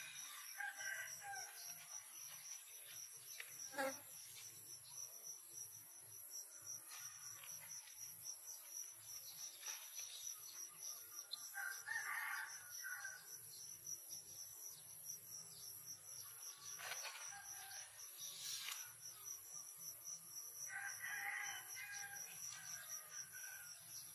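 Faint outdoor ambience: a steady high insect drone, with a bird calling three times, each call a second or two long and roughly ten seconds apart. A single sharp tap about four seconds in is the loudest sound.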